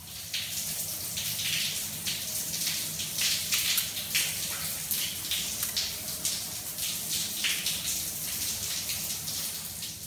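Shower head running, water hissing out of its scale-clogged holes in scattered jets and splashing onto a tiled floor. The spray is steady, with a constant flicker of splashes.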